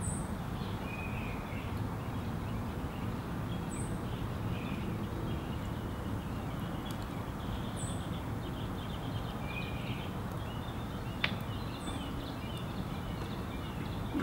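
Birds chirping, one repeating a short high call about every four seconds, over a steady low background hum, with one sharp click about eleven seconds in.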